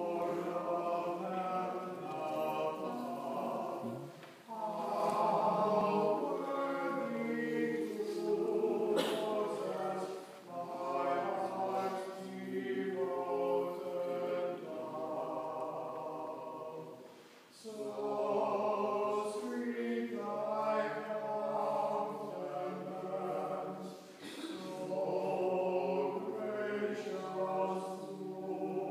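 Choir singing liturgical chant in long phrases with short breaks between them, the chant that opens a High Mass during the entrance procession.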